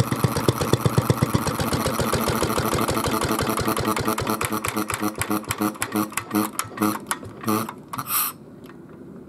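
Kubota AN single-cylinder kerosene stationary engine being shut down: its steady running beat slows, the strokes spreading further and further apart as the flywheel coasts, until it stops near the end.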